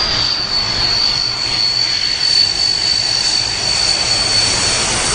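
Jet aircraft engines running loud, a steady rush with a high-pitched whine that sinks slightly in pitch.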